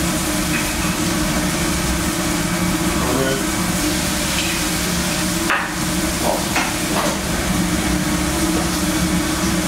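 Teriyaki-glazed salmon sizzling on a hot Lang griddle under its radiant clamshell, over a steady low hum, with a few short knocks about halfway through.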